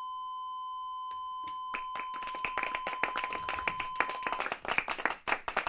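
Steady single-pitch test-card tone, the stand-by signal for a broadcast interruption, which cuts off about four seconds in. Scattered hand claps begin about two seconds in and build into a thin round of applause.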